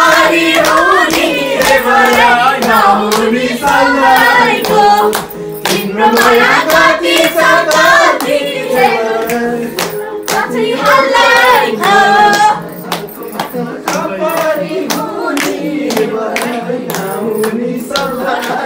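A group singing a song, with hand claps keeping the beat; it gets somewhat softer after about twelve seconds.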